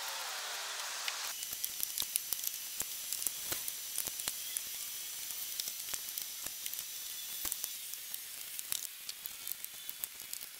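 Disposable chip brush spreading epoxy resin over plywood and into the frame joints: faint scratchy brushing with many small ticks.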